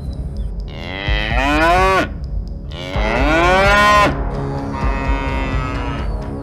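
Cattle mooing twice, each moo about a second long and rising in pitch.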